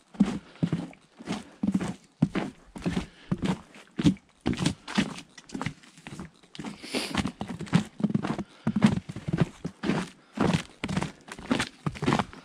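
Boots crunching in fresh snow on a wooden plank boardwalk, footsteps at a steady walking pace of about two a second.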